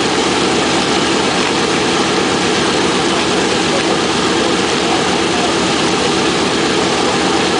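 B-17 Flying Fortress's Wright R-1820 Cyclone nine-cylinder radial engines idling steadily on the ramp, a dense, fast-pulsing drone of the running propellers.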